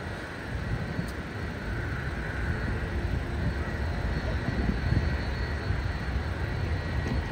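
Boeing 737 jet airliner on final approach with its landing gear down, its engine noise growing steadily louder over a low traffic rumble.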